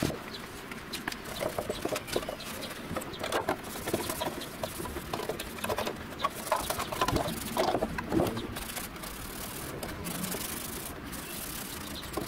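A rag wet with solvent scrubbing over a steel car body part in irregular strokes, with small knocks of the part on the bench. The strokes are wiping off transport primer that the 647 solvent has softened.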